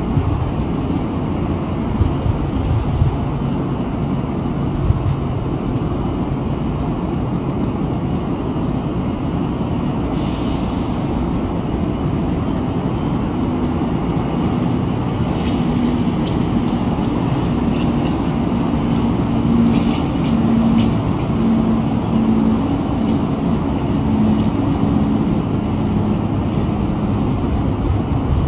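Electric train moving at a station: a steady low rumble, with a humming tone from about halfway through and a few short sharp clicks.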